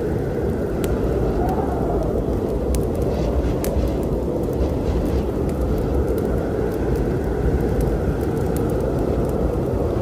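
Steady low rumble of a storm, with scattered sharp crackles and pops from a wood fire.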